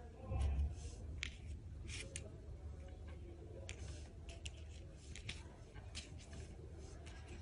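Small clicks and rustles as hands handle a crocheted piece, tiny plastic bead eyes and a hot glue gun, scattered about once or twice a second, with a brief low bump about half a second in over a steady low hum.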